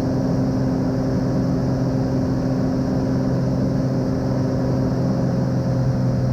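Single-engine Cessna 182M piston engine and propeller heard from inside the cabin, a steady drone in the climb after takeoff, with power being set back toward a cruise climb.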